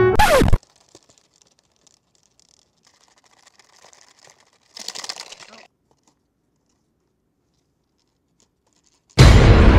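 Piano music cuts off with a quick falling swoop. A hush follows, with faint scratchy rustling and a brief papery crinkling burst about five seconds in. Loud dramatic music with a heavy low drum starts abruptly near the end.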